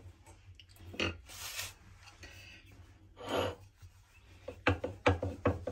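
A few soft rubs and a brief hiss as a floured dough ball is pressed flat on a marble rolling board, then a wooden rolling pin rolling it out in quick back-and-forth strokes, about four a second, from about three-quarters of the way in.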